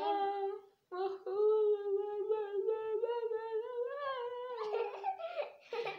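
A woman singing or humming in a drawn-out voice: a short note, then one long held note that wavers and rises slightly before breaking off near the end, with a brief rougher vocal sound after it.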